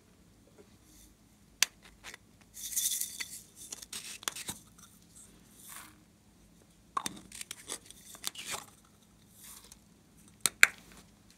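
Plastic toy-shaped slime containers being handled and opened by hand: sharp plastic clicks and snaps of lids, the loudest two close together near the end, with a short scraping rustle a few seconds in.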